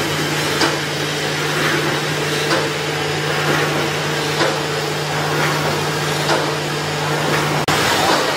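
Automatic roll-mesh welding machine running: a steady electrical hum with a sharp clack about every two seconds, and lighter knocks between, as it welds and advances the wire mesh.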